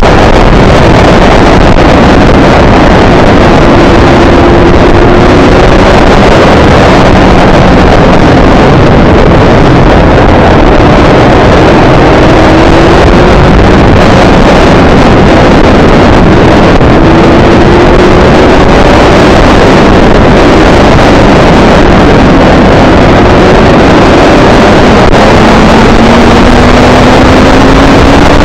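Loud, constant wind rush on a motorcycle-mounted camera's microphone at track speed. Underneath it the motorcycle's engine note can be heard faintly, rising in pitch several times as the bike accelerates out of corners.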